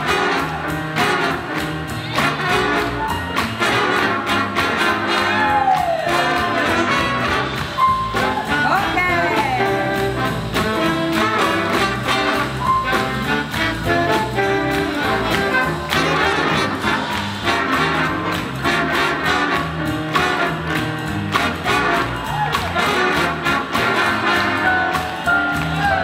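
Live swing jazz band playing an uptempo tune, with horns over a steady drum beat and upright bass.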